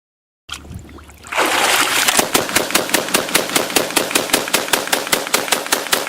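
AA-12 12-gauge automatic shotgun firing a long fully automatic burst, about five shots a second, beginning a little over a second in.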